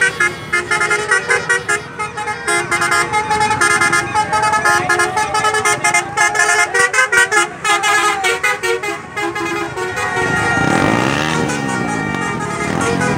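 A bus's multi-tone musical horn playing a quick run of stepped notes, switching near the end to rising and falling siren-like sweeps.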